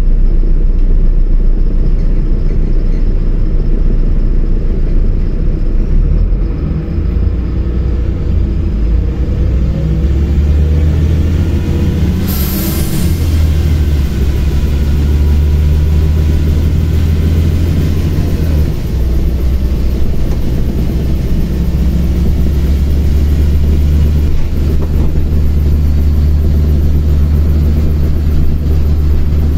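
LiAZ-5292.22 city bus's diesel engine running under way, heard from inside the passenger cabin as a loud low drone that shifts in pitch as the bus speeds up and changes gear. A brief hiss comes about twelve seconds in.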